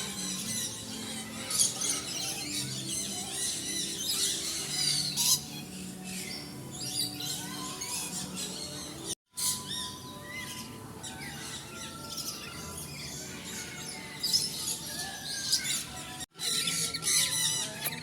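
A flock of caged birds chirping and twittering all at once, with occasional squawks. It is broken twice by a sudden short gap.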